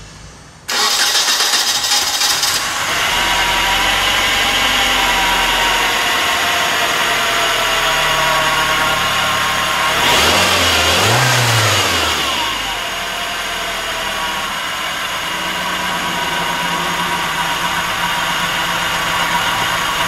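A 1997 Nissan Altima's 2.4-litre four-cylinder engine cranks and starts about a second in, then idles. Around halfway it revs up and drops back to idle. The idle is rough with a cylinder 4 misfire that injector cleaning has not cured, and smoothing out with revs points the mechanic to a vacuum leak.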